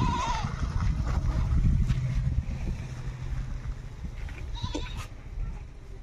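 A short, quavering livestock bleat near the start and a fainter call about five seconds in, over a low rumble that fades after about three seconds.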